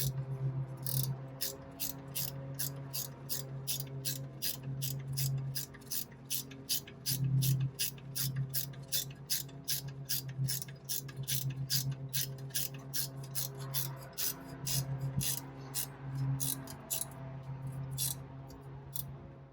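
Hand ratchet wrench clicking steadily, three or four clicks a second, as bolts are run in on a Jeep Wrangler JK's new front wheel hub assembly, with a steady low hum underneath.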